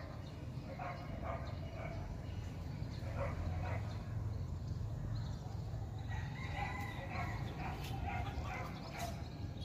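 Animal calls over a low steady rumble, with one longer held call about six seconds in.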